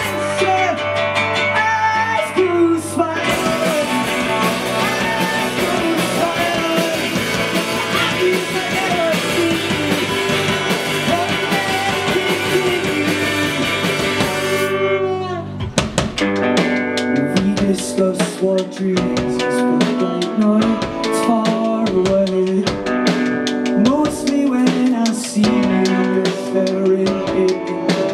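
A live rock band playing an instrumental break: saxophone leading over electric bass, drum kit and a strummed long-necked acoustic string instrument. About fifteen seconds in, the music thins out and the drums play separate sharp hits under sustained notes.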